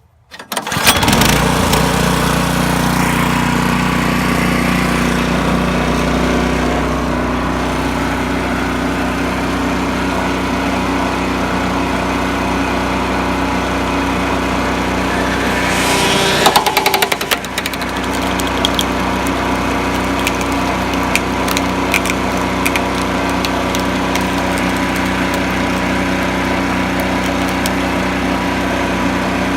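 Small gasoline engine of a log splitter running steadily, driving its hydraulic pump. It starts abruptly just under a second in, and about halfway through the sound briefly changes, with a few sharp cracks.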